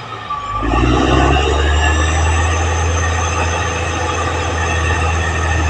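Caterpillar D6R XL bulldozer working, its diesel engine giving a steady low drone that picks up about half a second in, with high-pitched squealing over it.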